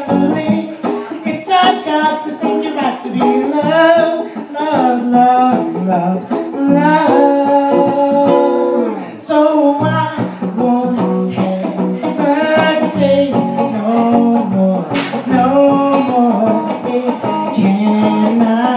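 Man singing karaoke into a handheld microphone over a music backing track, his voice amplified through the bar's sound system.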